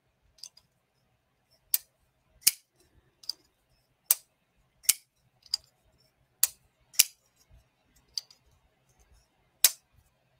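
Folding knife's blade being flicked open and snapped shut again and again: about a dozen sharp metallic clicks, unevenly spaced, as the blade breaks its detent, fires out and locks, then closes.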